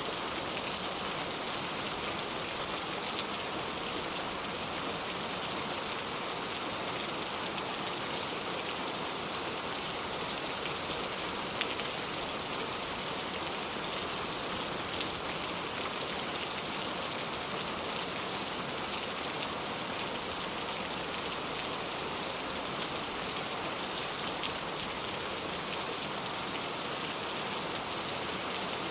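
Steady rain falling, with a constant hiss and scattered individual drops ticking on a surface.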